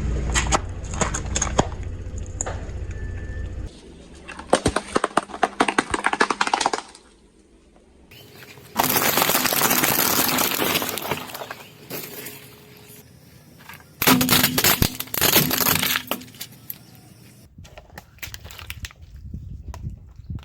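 Crunching and cracking as a car tyre rolls over and crushes brittle objects, in several separate bursts of a few seconds each, with a low rumble under the first few seconds.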